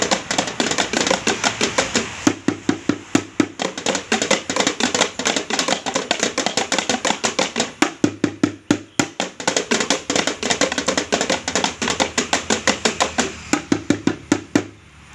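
Several boys drumming with sticks on improvised drums made from plastic buckets and metal tins: a fast, busy rhythm of overlapping strikes that stops suddenly just before the end.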